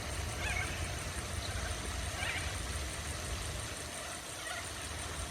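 Wind rumbling on the microphone, with a few faint parrot squawks, one about half a second in and another about two seconds in.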